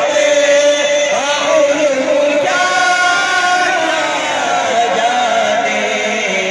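Men singing a naat, Urdu devotional poetry in praise of the Prophet, into microphones, in long held phrases that slide between notes, with no instruments.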